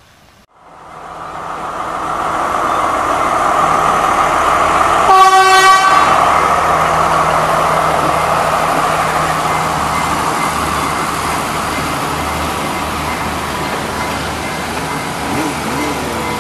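Sri Lanka Railways Class S14 diesel multiple unit pulling away and passing close by, its engine and wheels growing louder over the first few seconds and then running steadily. About five seconds in, it sounds its horn once, briefly.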